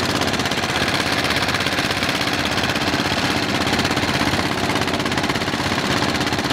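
Motorboat engine running steadily with a fast, even chugging pulse.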